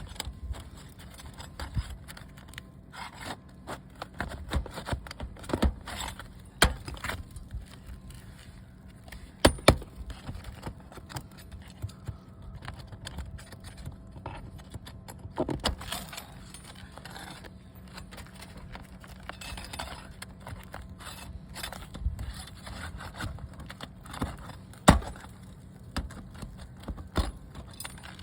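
Hand tools working roof shingles around a turtle vent: irregular scraping with scattered sharp clicks and knocks, the loudest about a third of the way in and near the end.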